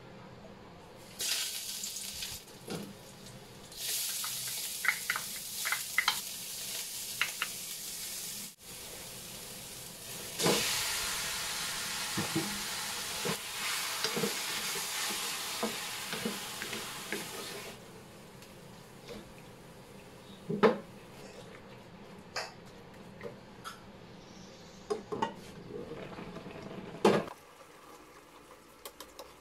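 Chopped raw pork frying in hot oil in a metal wok, with a wooden spatula stirring it and knocking against the pan. The sizzle is loudest through the middle, then fades, leaving scattered clicks of the spatula on the wok.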